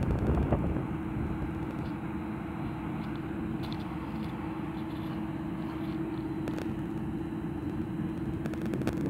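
Wind buffeting the microphone, a steady low rumble that swells near the start, over a constant low hum.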